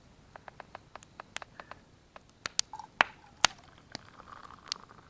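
Wood campfire crackling: irregular sharp pops and snaps of varying loudness, the loudest two about three seconds in.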